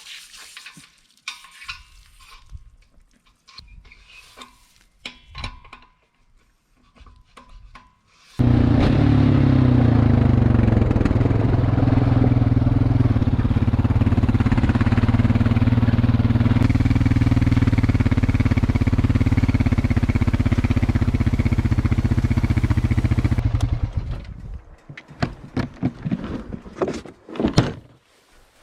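An engine running steadily at a constant speed, starting abruptly about eight seconds in and stopping about fifteen seconds later. Scattered clicks and knocks of handling before and after.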